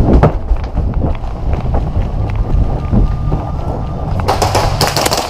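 Wind and movement rumble buffeting a body-worn camera's microphone as the wearer runs, with scattered footfall knocks. About a second before the end comes a dense burst of rapid snapping clicks: fast airsoft gunfire.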